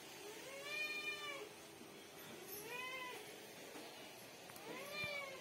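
Domestic tabby-and-white cat meowing three times, about two seconds apart, each meow rising and then falling in pitch: the cat begging for milk.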